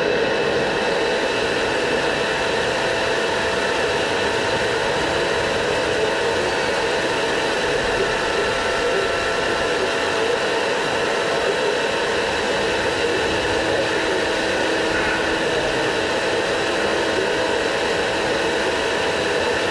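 Steady whir of a small electric motor with a fan, holding an even pitch with a few steady tones over a loud hiss.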